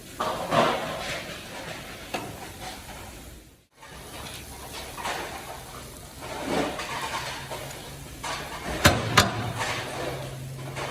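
Food sizzling in a pot while a utensil stirs and scrapes it, in uneven swells. Two sharp knocks come close together about nine seconds in, with a low steady hum under the second half.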